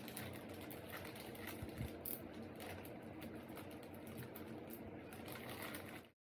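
Faint scratching and rustling of a cardboard box being handled and opened, over a steady background hum, with a couple of soft knocks about two seconds in. The sound cuts out abruptly near the end.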